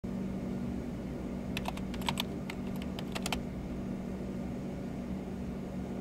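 A short burst of typing on a slim computer keyboard: about a dozen quick key clicks, starting about a second and a half in and stopping before the middle, over a low steady hum.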